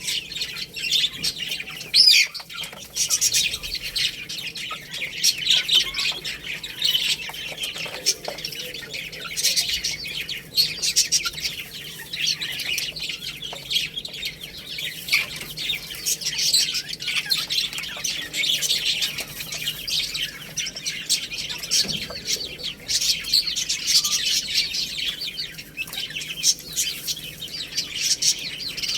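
Many small birds chirping together, a continuous mass of overlapping short high-pitched calls.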